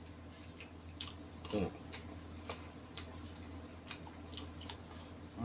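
A metal spoon clicking and scraping against a styrofoam food container while eating, with chewing sounds: about eight short, irregular ticks, one or two a second, over a steady low hum.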